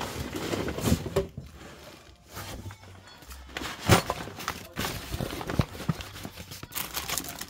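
Belongings being rummaged and handled in a box: plastic bags and packaging rustling, with irregular knocks and clicks as objects are moved. A sharp knock about four seconds in is the loudest sound.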